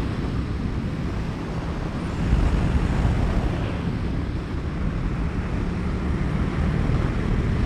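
KTM RC8 V-twin sportbike engine running under way at road speed, with wind rushing over the microphone; it gets a little louder about two seconds in.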